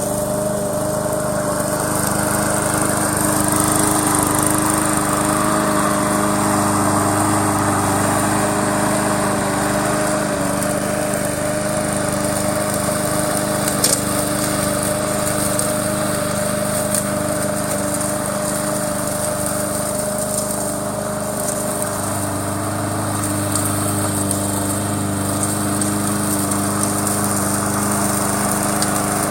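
Remote-control lawn mower running steadily as it is driven, a constant even hum of several steady tones.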